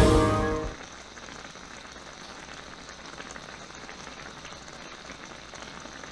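Music fades out in the first second, leaving sukiyaki broth simmering in its pot: a quiet, steady bubbling hiss with fine crackles.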